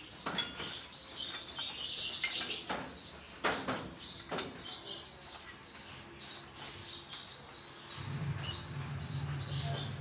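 Sparrow nestlings giving thin, high cheeps as the parent feeds them, over irregular clicks and rustles of the adult's bill and the dry-grass nest. A low hum comes in about eight seconds in.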